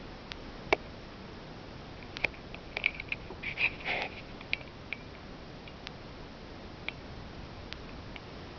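Steady hiss with scattered sharp clicks and a short patch of rustling and ticking about two to four seconds in, typical of a handheld camera being handled.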